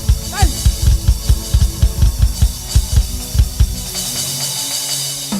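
Church band music: a drum kit plays a fast, steady beat over held bass and keyboard notes. About four seconds in the kick drum drops out, leaving a cymbal wash and a sustained bass note.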